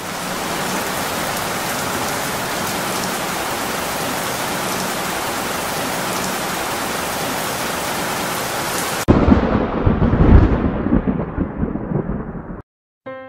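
Rain and thunder sound effect: steady heavy rain hiss, then about nine seconds in a rolling rumble of thunder that lasts a few seconds and cuts off sharply near the end.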